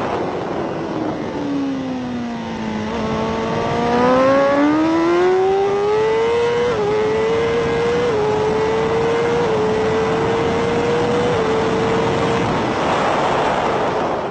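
BMW superbike's inline-four engine at racing speed, heard onboard over wind rush. The revs fall as it slows for a corner, then climb as it accelerates out and runs up through the gears, each upshift a small dip in pitch. Near the end the engine note fades under the wind noise.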